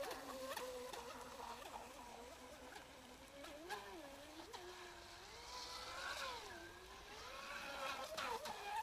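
Graupner Midnight Gambler 2.0 RC model racing boat's motor whining as it runs across the water, its pitch wavering up and down with throttle and turns.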